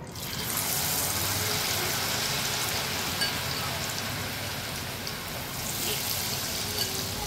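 Potato strips hitting hot oil in a kadhai. The oil sets off at once into steady deep-frying sizzle and bubbling.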